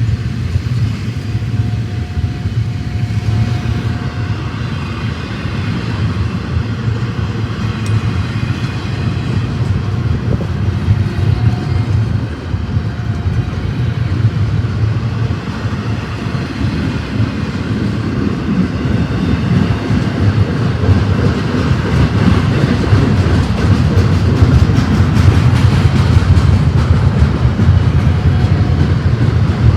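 Freight train rolling past, a steady low rail noise that grows louder over the last third.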